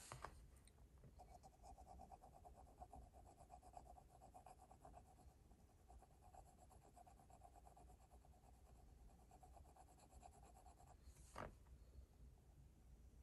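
Faint scratching of a graphite pencil on paper in fast, short shading strokes lasting about ten seconds, with a sharp tap just at the start and another about two seconds before the end.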